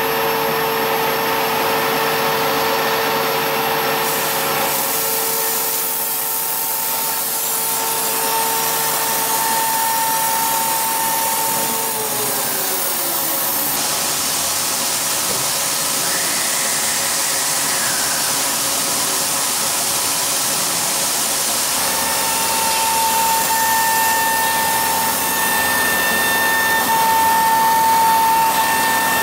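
CNC router spindle running at speed with a steady whine over a hiss of cutting as a V-groove bit cuts aluminium composite panel. About twelve seconds in the whine falls in pitch and dies away as the spindle slows, and a steady whine returns about ten seconds later.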